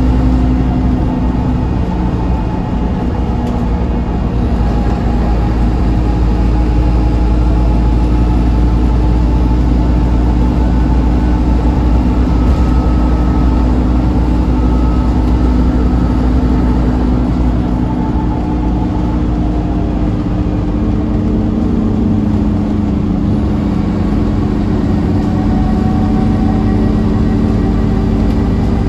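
Scania N230UD OmniCity double-decker bus on the move, heard from inside the lower saloon. Its five-cylinder diesel engine drones with a strong low rumble, the engine note rising and falling as the bus speeds up and eases off.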